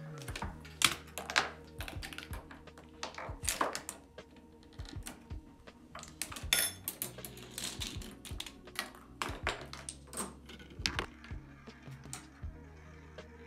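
A chain-reaction machine of K'nex pieces and plastic track running: irregular clicks and clatter of balls rolling and dropping and of small plastic and wooden parts knocking and tipping, thinning out near the end, over a steady low hum.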